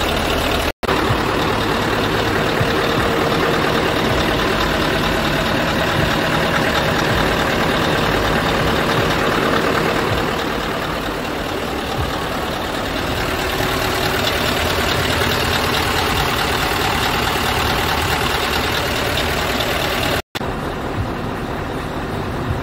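Scania R V8 diesel engine idling steadily, a little quieter from about ten seconds in, with two momentary dropouts where the recording is cut.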